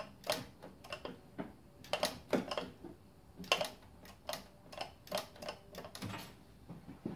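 Irregular light clicks and taps from hand work with small parts or tools, one to three a second, some with a brief metallic ring.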